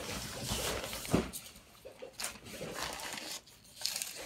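Fabric of an IKEA LÖVA leaf canopy rustling and sliding in the hands as its stem is snaked through, in uneven bursts, with a sharp knock about a second in.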